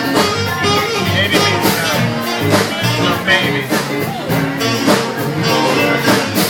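Live band playing a song with a steady beat.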